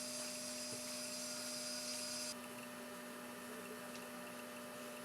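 Faint steady electrical hum over a constant hiss. The hiss drops a little in level a little over two seconds in.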